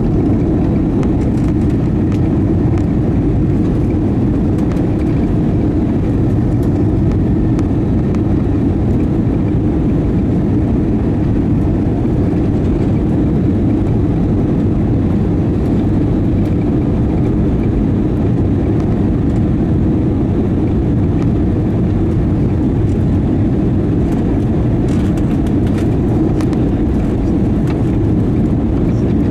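Steady cabin noise inside an Airbus A320-232 on approach to land: the wing-mounted IAE V2500 turbofans and the rush of air past the fuselage, heard from a window seat over the wing. A low, even rumble that holds steady throughout.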